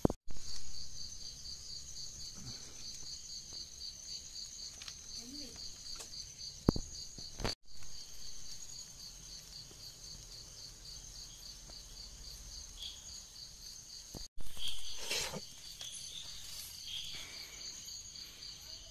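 Crickets chirping in a steady, evenly pulsing high trill, with a couple of short louder noises near the start and about fifteen seconds in.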